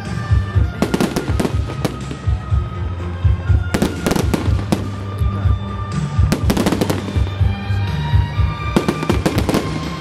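Fireworks going off in clusters of sharp bangs and crackles, the densest volleys about a second in, around the middle and near the end, with music playing underneath.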